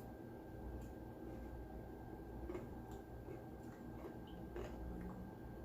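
Faint chewing and wet mouth clicks of a person eating a burger, a few soft clicks scattered through, over a low steady room hum.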